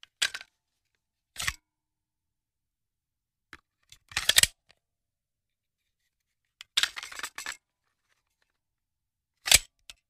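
Handgun magazine loading: a series of short, sharp clicks and clatters, about six separate takes with silence between them. The loudest is a single hard click near the end.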